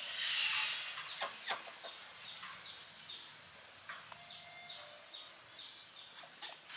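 Chickens clucking: a louder call at the very start, then many short, high-pitched chirps.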